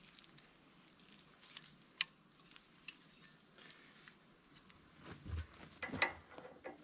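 Faint knocks and clicks: one sharp click about two seconds in, a lighter one just after, then a quick cluster of knocks and clatter near the end.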